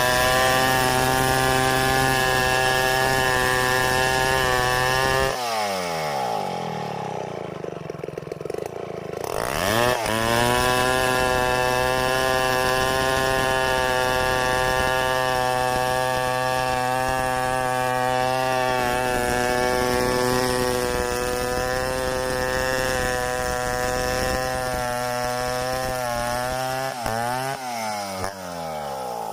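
Stihl 070 two-stroke chainsaw running at steady high revs while freehand milling a log. About five seconds in it drops to idle, revs back up about ten seconds in, and near the end it dips and revs again before dropping off.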